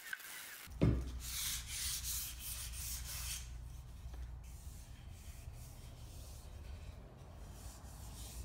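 Hand sanding of a walnut-and-maple block with sandpaper: a steady scratchy rubbing with a low rumble under it, stronger for a couple of seconds and then softer. There is a thump about a second in.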